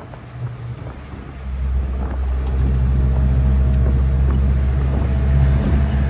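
A motor vehicle engine running with a steady low hum, growing louder about a second and a half in and then holding steady.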